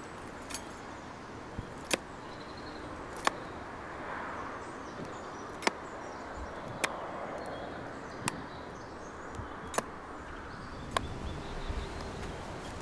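Billhook chopping into the base of a hedge stem, about eight sharp blows at roughly one every second and a half: the angled pleaching cut made to lay the stem.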